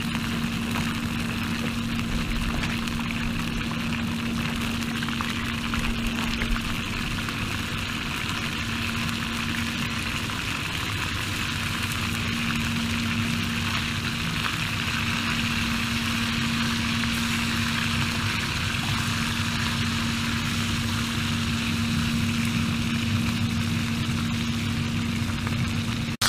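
Portable gas-canister camping stove burning steadily under a frying pan, with food sizzling in oil: a continuous hiss over a steady hum.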